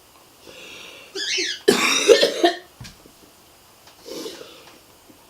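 A woman coughing and gagging in several harsh bursts, the loudest about two seconds in, as she chokes on a swallowed mixture of raw eggs and milk.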